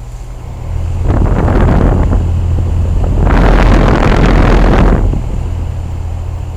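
A motor vehicle passing close by: a low hum swells into loud rushing noise about a second in, surges again around the middle, then fades away.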